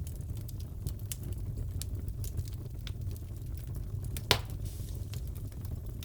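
Wood fire crackling in a fireplace: a steady low rumble with scattered small crackles and one louder pop about four seconds in.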